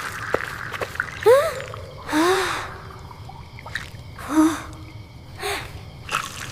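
Snoring breaths, about four, each carrying a short squeaky whistle that rises and falls in pitch, with small clicks between them.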